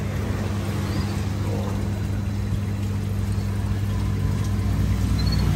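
Bubbling water of aerated aquarium tanks over a steady low hum.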